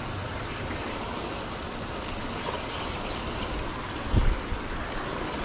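Steady churning noise of a pond paddlewheel aerator, with a faint high-pitched tone coming and going. A brief low thump about four seconds in.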